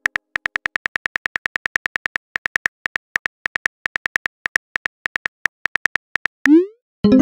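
Texting app's keyboard tap clicks, short ticks at about six a second, as a message is typed letter by letter. About six and a half seconds in, a loud rising whoosh as the message is sent, and music starts just after.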